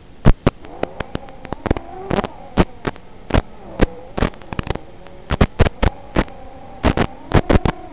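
FPV quadcopter's electric motors whining, the pitch rising and falling as the throttle changes. Frequent sharp crackles and pops break in over the whine and are the loudest sounds.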